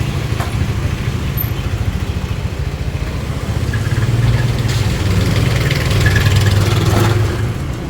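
Street traffic: a motor vehicle's engine running close by, swelling louder for a few seconds past the middle and then falling away as it passes.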